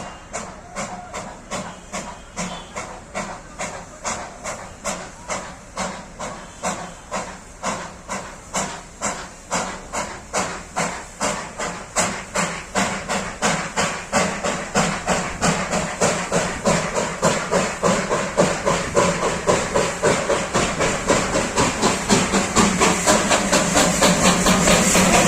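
Darjeeling toy train steam locomotive No. 804 working hard: a steady beat of exhaust chuffs, about two a second, with steam hiss between them, growing louder as it approaches.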